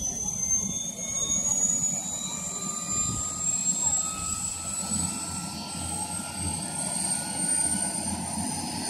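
Helicopter turbine engine spooling up during start: a whine that rises slowly and steadily in pitch over a low rumble from the slowly turning main rotor.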